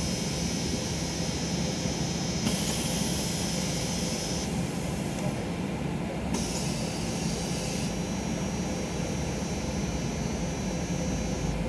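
Iveco Crossway POP bus's diesel engine idling, heard from inside the passenger cabin as a steady low rumble. A thin high whine cuts in and out twice over it.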